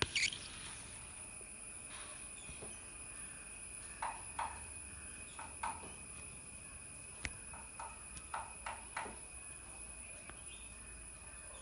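A small bird pecking at its reflection in a mirror: light, irregular taps on the glass, a few of them in quick pairs.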